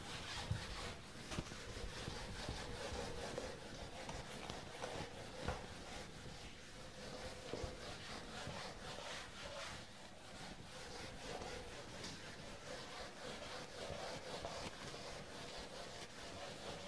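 A handheld eraser rubbing back and forth across a whiteboard, wiping off marker writing in a faint, steady run of scrubbing strokes.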